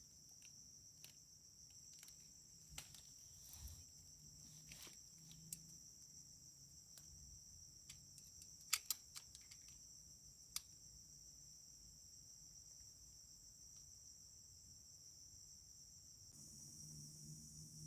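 Faint, steady high-pitched insect chorus of crickets, with a few scattered sharp clicks, the loudest a pair about nine seconds in.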